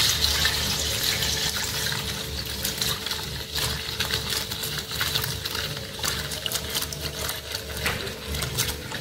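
Spiced wine being poured in a steady stream from a pot onto a cotton straining cloth over a steel vessel, splashing, slowly growing quieter.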